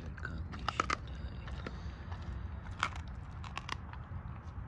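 Doberman chewing a whole raw squirrel, bones and all: wet crunching with sharp cracks in clusters about a second in, near three seconds, and again just after.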